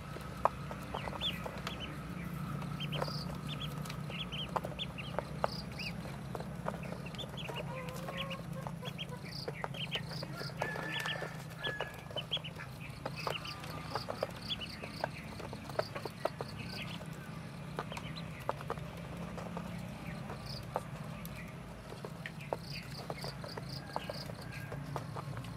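A brood of ducklings peeping in many short, high chirps, over and over, with sharp clicks as they peck at feed in a tray.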